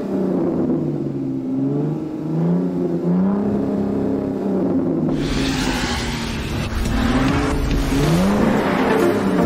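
A car engine revving up and down in repeated swells. About five seconds in, a rush of road noise joins it.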